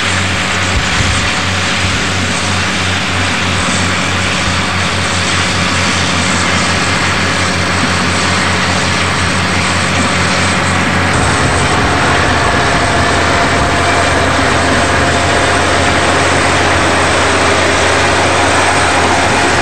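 Bulldozer's diesel engine running steadily under work. Its low drone pulses at first, then fills out into a steady, heavier drone about eleven seconds in, with a steady whine coming in shortly after.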